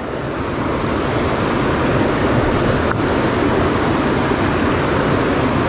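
Whitewater rapids of a mountain river rushing close by, loud and steady.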